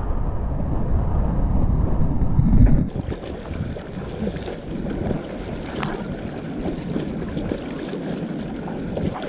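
Ocean water rushing and splashing right at a camera riding at the surface on a surfboard. A loud low rumble of churning water and wind on the microphone for about the first three seconds, then quieter lapping and splashing as the board moves through the water.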